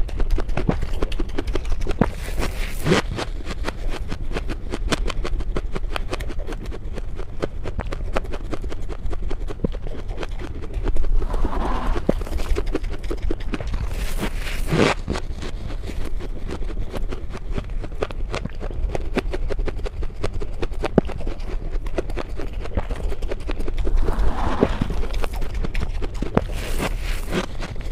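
Powdery freezer frost crunching as it is scooped up by hand and bitten and chewed right at a clip-on microphone: a dense run of fine crisp crackles with a few louder crunches.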